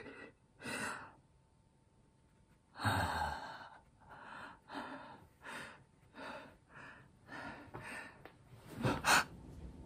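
A man breathing hard without words: a heavy sigh about three seconds in, then a run of short, sharp breaths about two a second, and a loud gasping breath near the end.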